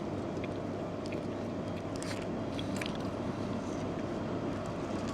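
Someone chewing a piece of eel snack, with a few soft clicks of mouth and wrapper sounds over a steady low background hum.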